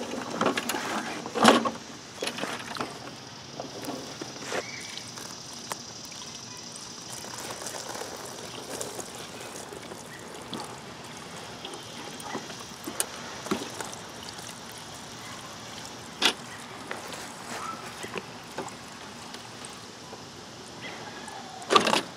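Stale two-year-old gasoline pouring from a lawn mower's fuel tank filler neck into a plastic drain pan, a steady trickling stream. Clattering and a loud knock about a second and a half in as the mower is handled, with a few more sharp knocks later and another loud one near the end.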